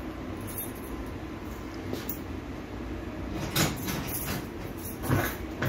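RUPES LD30 air-powered mini orbital sander running free off the air line with a steady hiss, with short louder bursts about three and a half seconds in and again about five seconds in.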